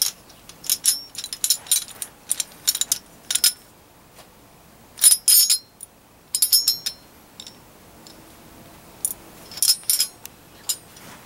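Aluminium antenna tubing and its bracket hardware clinking and rattling as the assembly is handled: scattered clusters of light, sharp metallic clicks.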